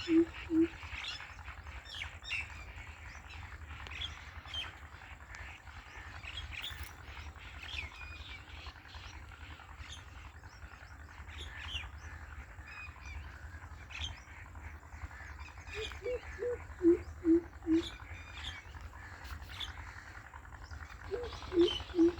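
Greater coucal calling: series of deep hooting notes, six to eight at a time a few tenths of a second apart, falling slightly in pitch. The series comes three times, at the start, past the middle and near the end, with small birds chirping faintly in the background.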